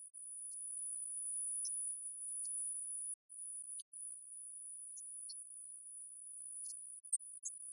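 A steady, very high-pitched thin whine that cuts out briefly twice, a little after the middle, with a few faint ticks.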